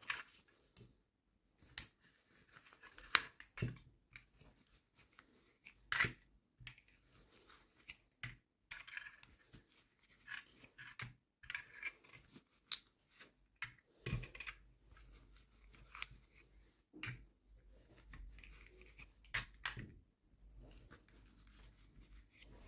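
Hands unwrapping toy packaging: irregular clicks, taps and short rustles of plastic and paper, with some tearing.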